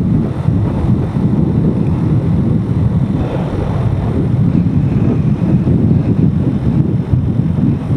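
Steady low rumble of wind buffeting the microphone of a camera on a moving motorcycle, mixed with the bike's engine and road noise.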